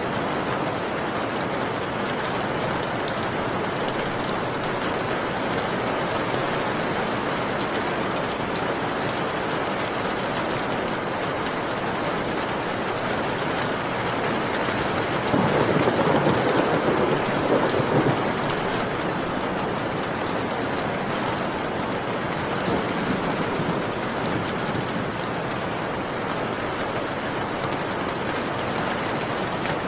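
Steady rain falling, with a low roll of thunder about halfway through that lasts around three seconds, and a fainter rumble a few seconds after it.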